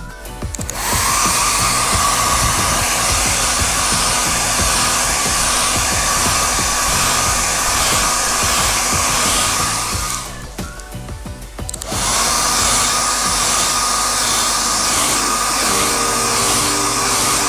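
Small electric motor of a handheld tool running at a steady whir with a tone in it. It winds up at the start, is switched off about ten seconds in, and is started again about a second and a half later.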